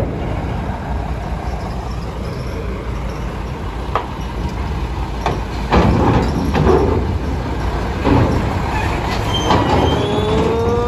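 Vehicles driving onto a ferry's steel loading ramp: a steady low diesel engine rumble with sharp clanks as wheels cross the steel grating, the loudest about halfway through. Near the end a rising pitched tone sets in as a heavy diesel truck pulls up to the ramp.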